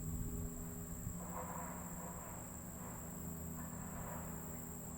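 Crickets trilling in one steady high, even tone over a low steady hum.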